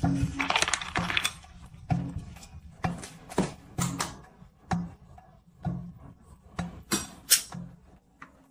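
A series of light clicks and taps, roughly one a second and irregular, each with a soft low thud; a brief hiss in the first second.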